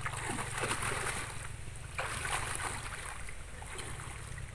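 Water sloshing and splashing as people wade through a shallow muddy pond, dragging a seine net through the water, with wind rumbling on the microphone.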